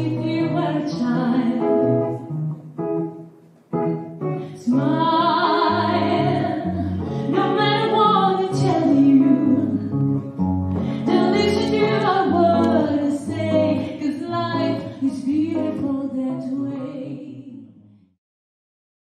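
A woman singing a song with guitar accompaniment, with long held notes. The music cuts off suddenly about 18 seconds in.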